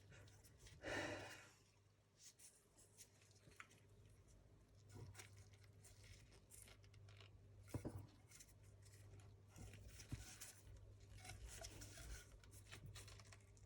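Near silence with faint handling noises: small clicks and rustles of engine parts and tools being moved about, with a brief louder rustle about a second in and a sharper click near the middle.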